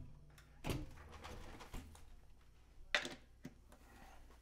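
Faint knocks and clicks of an archtop guitar being handled and its cable plugged back into the amplifier, with a low hum that stops about two seconds in.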